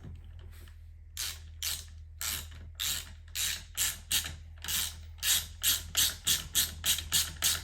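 Socket ratchet wrench turning a bolt into a seat rail: repeated strokes of ratchet clicking, which come faster and louder as it goes.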